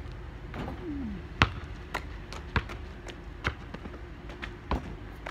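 Basketball bouncing on asphalt after a shot at a portable hoop: five separate bounces at widening intervals, the first, about one and a half seconds in, the loudest.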